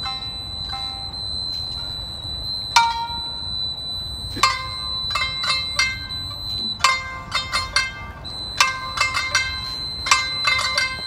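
Traditional Japanese plucked-string music. A few single plucked notes ring out at first, then quicker runs of notes from about seven seconds in. Underneath run a steady high whine and a low rumble.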